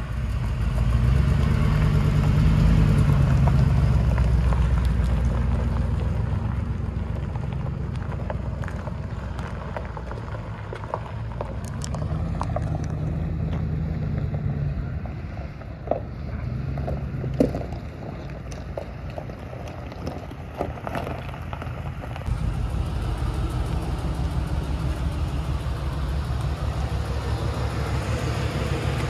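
2004 Ford F-150 pickup's engine running as the truck drives across a gravel lot, loudest in the first few seconds as it passes close by. Scattered clicks come in the middle, and near the end the engine runs steadily at idle.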